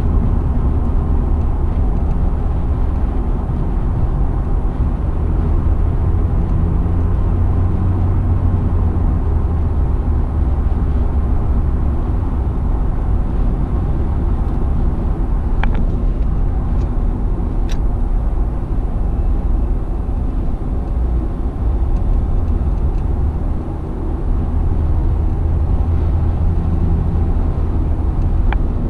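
Car cabin noise at highway speed: a steady low rumble of tyres on the road and the engine, with a few faint light clicks partway through.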